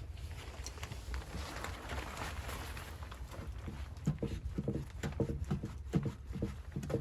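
Repeated crunching in snow, irregular, about two crunches a second, starting about halfway through, over a steady low rumble.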